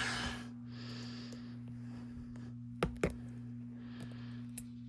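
A few sharp clicks and taps of small metal phone parts and tweezers being handled during an iPhone teardown, with two short soft hisses, over a steady low electrical hum.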